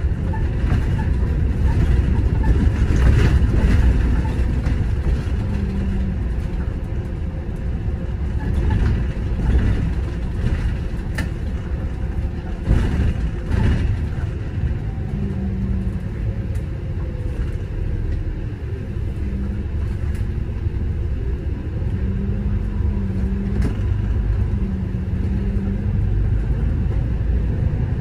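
City bus driving in traffic: steady engine and road rumble, with a low hum that comes and goes several times.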